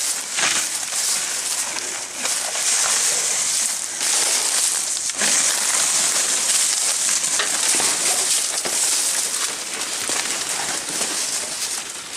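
Leaves, branches and twigs rustling and crackling continuously as someone pushes on foot through dense undergrowth close to the microphone.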